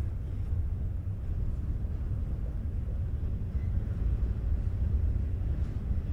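Double-stack intermodal freight cars rolling slowly past on the rails, a steady low rumble with no break.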